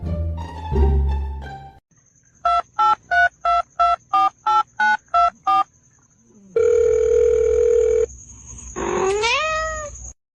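Music breaks off, then ten quick beeps like a phone keypad being dialled, followed by a held steady tone and a tone that slides upward near the end.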